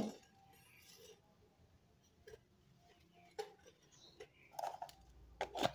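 A sharp click at the start, then faint scattered clinks and knocks of kitchen containers being handled, busier near the end.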